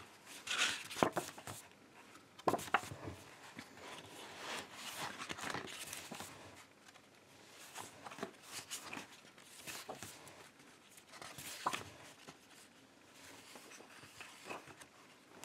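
Pages of a paperback book being turned one after another: short, irregular paper rustles and flaps.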